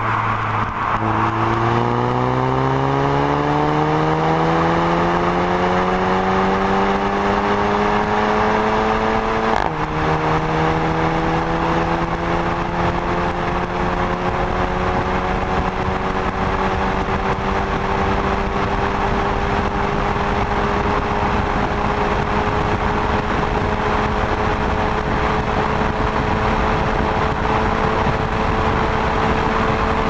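Volkswagen Golf Mk7 GTI's 2.0-litre turbocharged four-cylinder accelerating at full throttle from about 75 km/h toward top speed, heard from inside the cabin over wind and tyre noise. The engine note climbs steadily, drops sharply at a quick DSG upshift about ten seconds in, then rises slowly again as the car nears its top speed.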